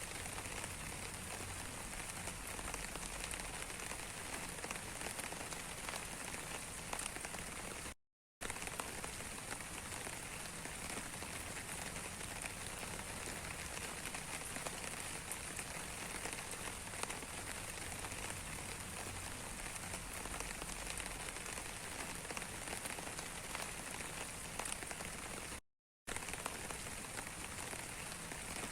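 Steady rain falling, an even hiss full of fine drop ticks. It cuts out to dead silence twice for a fraction of a second, about 8 seconds in and again near 26 seconds.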